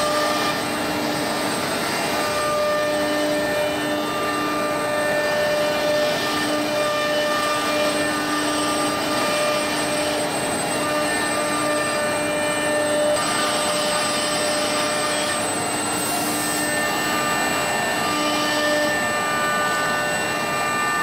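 CNC router production line running steadily: a machine whine made of several steady tones that fade in and out over a constant rushing noise.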